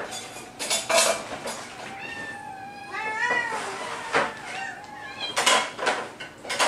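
Tabby kittens meowing, several high calls that bend up and down about two to three and a half seconds in. Sharp clinks and clatters of dishes and a food can being handled come before and after the meows.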